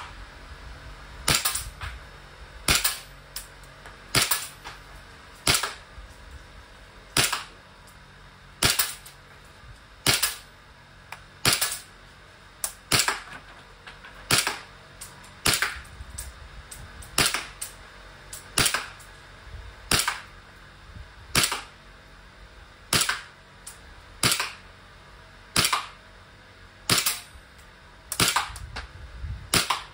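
Green-gas blowback airsoft pistol, an EMG F1 BSF 19, firing slow single shots, a sharp crack about every second and a half.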